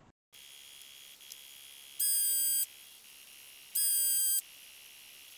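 Two loud electronic beeps, each a bit over half a second long and about a second and three-quarters apart, over a steady thin hiss.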